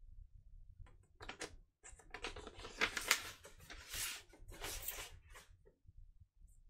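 Handling noise from a vinyl record being moved about in the hands: a few seconds of rustling and clicking, loudest about halfway through.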